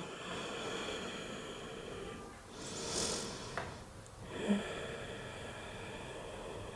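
A woman breathing quietly, with one longer, louder exhale about three seconds in and a small click a little after.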